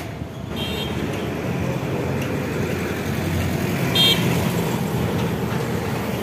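Busy road traffic passing, a steady wash of engine and tyre noise. A vehicle horn toots briefly about half a second in and again, louder, about four seconds in.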